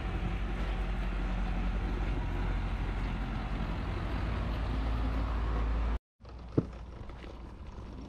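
A motor vehicle engine running close by, a steady low hum with road noise. It cuts off abruptly about six seconds in, leaving a quieter, similar background with one brief short tone.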